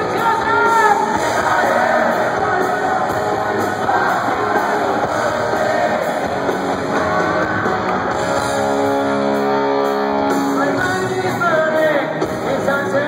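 Live hard rock band playing loud through a concert PA: distorted electric guitars, drums and a lead vocal, with a long held note about two-thirds of the way through. Heard from the audience on a mobile phone's microphone.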